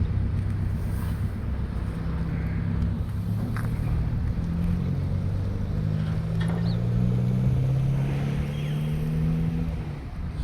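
Diesel engine of a Caterpillar excavator running under working load, its pitch shifting up and down, with a few faint clinks. It eases off near the end.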